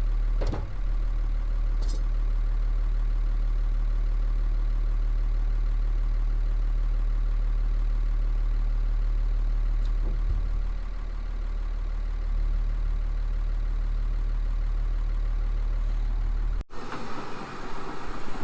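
A heavy engine idling steadily with a deep, even low hum. It cuts off abruptly near the end and is replaced by a brighter hiss.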